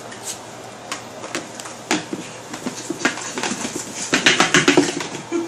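Scattered light clicks and taps of handling, thickening into a quick run of clicks with brief muffled voice sounds about four seconds in.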